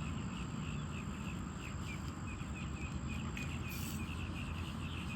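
Outdoor ambience: many short, high, falling chirps at irregular intervals over a steady low rumble.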